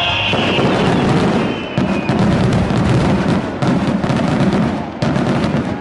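Aerial firework shells bursting overhead: loud booms about two, three and a half and five seconds in, over a dense crackling of falling gold stars.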